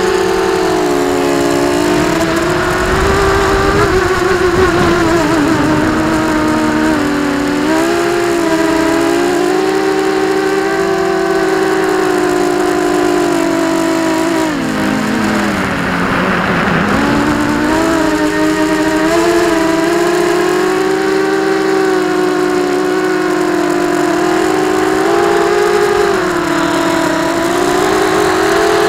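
FPV quadcopter's brushless motors and propellers whining in flight, heard through the onboard camera, the pitch rising and falling with the throttle. About halfway through the pitch drops steeply, then climbs back.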